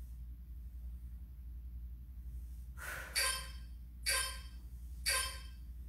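Three sharp, breathy exhales about a second apart from a person straining through banded clamshell reps, over a low steady hum.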